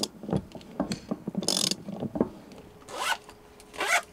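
A socket ratchet tightening a floor bolt, its pawl clicking in short rasping strokes. In the last second or so, a backpack zipper is pulled in quick strokes.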